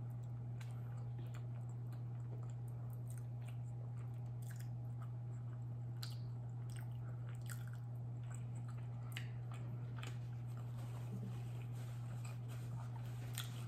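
A person chewing food, with many scattered soft mouth clicks and smacks, over a steady low hum.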